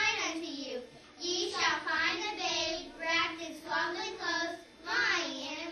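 A group of children singing together in unison, in short phrases with brief pauses between them.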